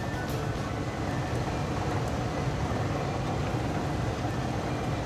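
Steady sizzle of a stuffed keema paratha frying in desi ghee in a nonstick pan, over an even low rumble.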